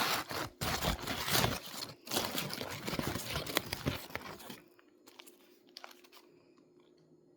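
Sandwich wrapper crinkling and tearing as a chicken sandwich is unwrapped, a dense crackle that stops about two-thirds of the way in.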